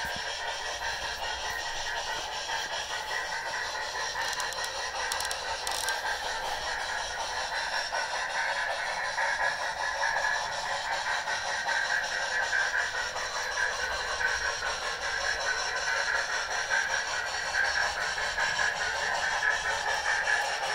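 Model steam locomotives with DCC sound decoders running: a steady hiss-like steam sound from their small onboard speakers, mixed with wheel and running noise on the track. It gets louder in the second half as two of the locomotives come close.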